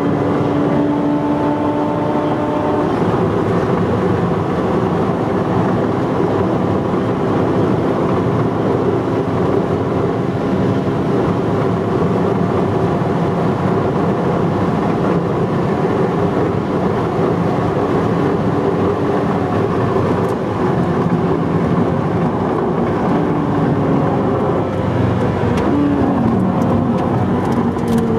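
Ferrari 458 Speciale's naturally aspirated V8 heard from inside the cabin at speed, under heavy wind and road noise. Near the end the engine pitch falls as the car slows.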